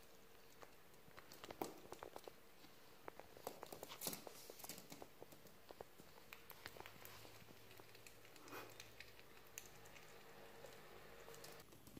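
Sugar glider chewing its food: faint, irregular crunchy clicks.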